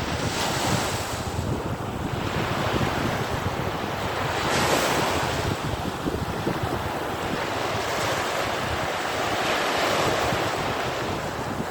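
Sea waves breaking and washing up on a beach, swelling and easing every few seconds, with wind buffeting the microphone.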